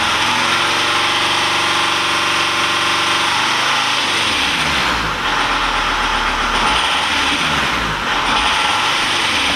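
Volkswagen T4 Transporter van running. Its engine note is steady for about four seconds, then rises and falls in pitch again and again, over a steady hiss. The uploader files this sound under the van's rattle ("klappern").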